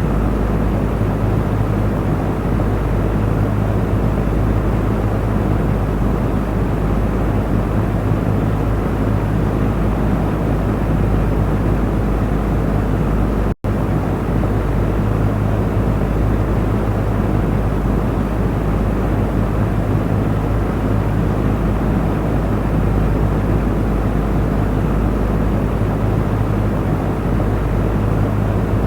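Electric fan running steadily: an even rush of air over a low motor hum, with a split-second dropout about halfway through.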